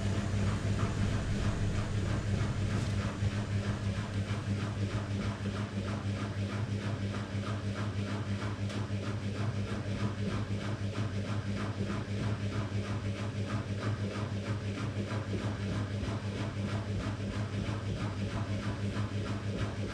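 Miele PW6055 professional washing machine after its 1400 rpm final spin: a steady hum with a soft regular pulsing, about two or three beats a second, as the drum turns slowly.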